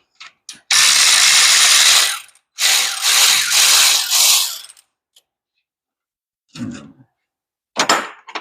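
Ratchet run fast on the brake caliper bolts in two dense clicking runs of a second or two each, followed near the end by a few short clacks of metal parts being handled.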